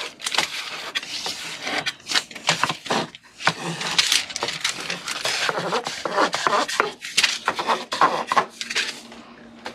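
Metal dough scraper scraping over parchment paper on a wooden board as it is pushed around and under a round loaf of dough, with the paper rustling: a run of irregular scrapes.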